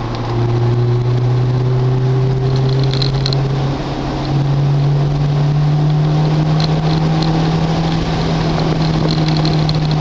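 Car engine running under load at steady, loud revs, its pitch climbing slowly. Its level dips briefly about four seconds in, then it carries on at higher revs.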